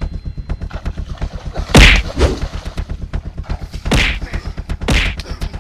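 Three punch sound effects in a staged fight, sharp thwacks about two seconds and then one second apart, the first the loudest, over a fast, steady clicking rhythm.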